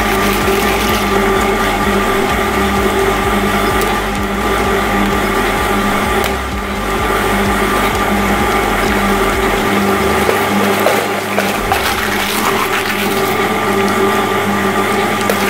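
Twin-shaft shredder running with a steady motor hum and whine, its cutters turning and crushing whole eggs in the shell, with a few sharp cracks of shell.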